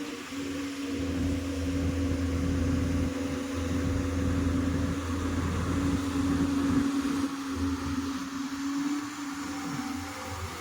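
Heavy earthmoving machine's diesel engine running steadily, with a constant drone.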